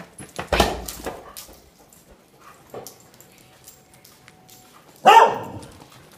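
A mixed-breed dog barks twice: a sharp bark about half a second in and another about five seconds in.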